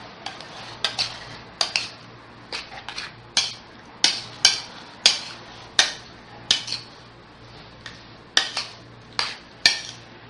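A utensil clinking and knocking against a dish in sharp, irregular strikes, about two a second, as chopped orange is mixed with salt and chopped green chillies.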